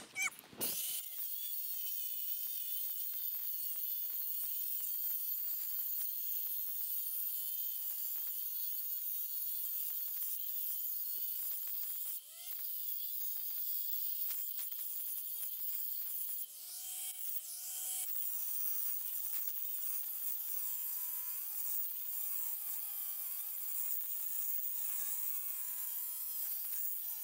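Corded angle grinder running with its disc cutting into the steel of a safe's door at the handle: a steady high grinding whine whose pitch wavers as the disc is pressed into the metal. It breaks off briefly twice, about twelve and sixteen seconds in, then picks up again.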